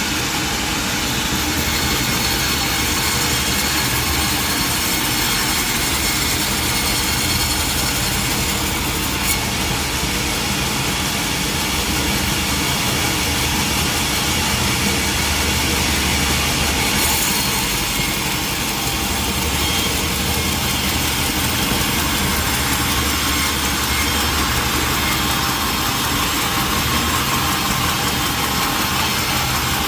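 Sawmill machinery running steadily: a continuous engine sound with a dense hiss over it, unbroken throughout.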